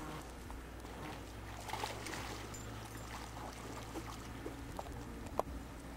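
Shallow lake water splashing and trickling faintly as a person and a dog wade at the shore's edge, over a low steady rumble, with a few light clicks.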